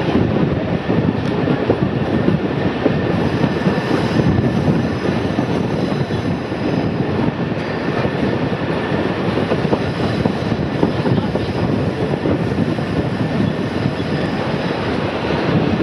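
Passenger carriage of a narrow-gauge heritage train running along the track, heard from an open window: a steady rumble of wheels on the rails.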